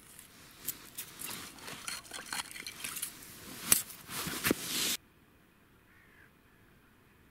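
Close handling noise of gear on the ice: rapid clicks, scrapes and crinkling, with one sharper knock near the end. It stops abruptly about five seconds in, leaving near-quiet with a faint short bird call.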